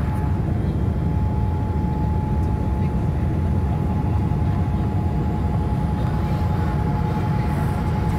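Cabin noise over the wing of a Boeing 787-8 climbing out after takeoff: a steady deep roar of its Rolls-Royce Trent 1000 engines and rushing air, with a thin steady whine held through it.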